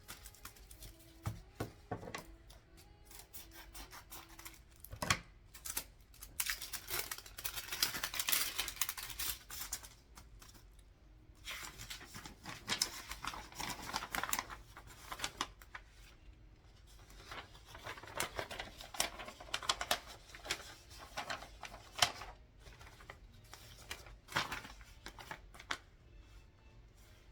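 Sheets of paper being handled and sorted: repeated stretches of rustling, sliding and ripping paper lasting a few seconds each, with sharp clicks and taps in between.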